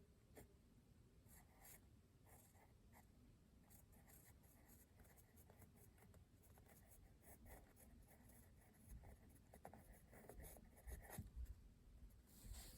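Freshly sharpened Dixon Ticonderoga pencil writing on notebook paper: faint, quick scratching strokes of graphite on the page.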